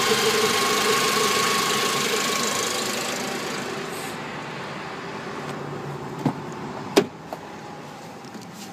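Renault K4M 1.6-litre sixteen-valve petrol four-cylinder running steadily, heard close in the engine bay, then growing quieter and duller over a few seconds as it is heard from inside the cabin. Two sharp knocks come about six and seven seconds in; the second is the loudest sound.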